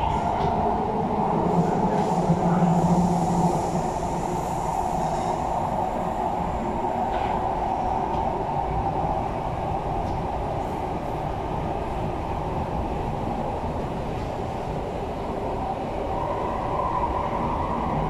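MTR East Rail Line R-Train (Hyundai Rotem electric multiple unit) running through the cross-harbour tunnel, heard from inside the passenger car. There is a steady rumble of wheels and rails, with a motor hum standing out for the first few seconds.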